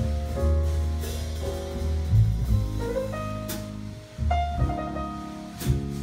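Jazz trio of piano, upright double bass and drum kit playing an instrumental passage of a slow ballad: held piano chords over bass notes, with a few light drum strokes.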